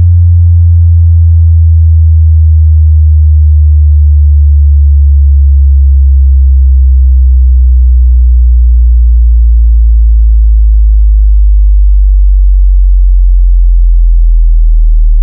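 Deep sub-bass test tone, a single loud pure tone that slowly glides down in pitch the whole time, with faint upper overtones fading out in the first few seconds.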